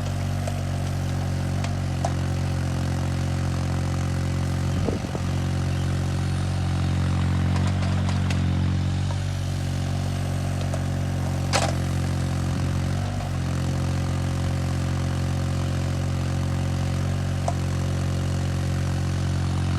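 An engine running steadily at a constant speed, with one sharp click a little past halfway.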